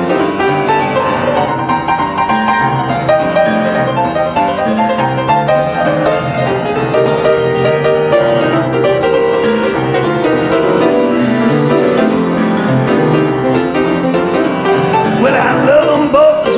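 Recorded blues song in an instrumental break: a piano solo on a baby grand, with a steady low bass rhythm beneath. A voice comes back in near the end.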